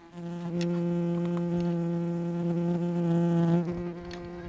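A bee buzzing close to the microphone in one steady drone that holds its pitch. It drops away about three and a half seconds in and lingers faintly before fading out.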